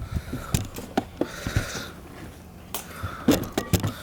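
Bonfire burning with scattered sharp pops and knocks, a couple of the loudest about three seconds in.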